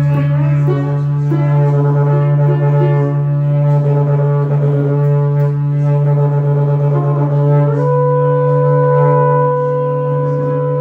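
A didgeridoo holds a steady low drone while a trumpet and a bowed cello play shifting lines above it in free improvisation. About eight seconds in, a long steady higher note comes in and holds over the drone.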